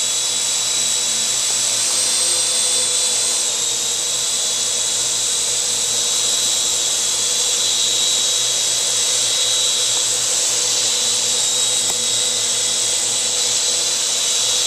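Parrot drone quadcopter flying, its motors and propellers running steadily: a high whine over a whirring hiss.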